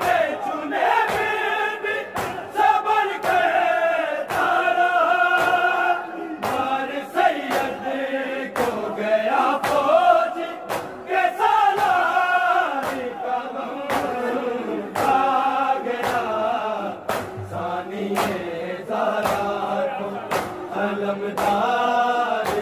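An Urdu noha, a Shia mourning lament, chanted by a male voice with chorus-like backing. The sung lines are cut by sharp beats.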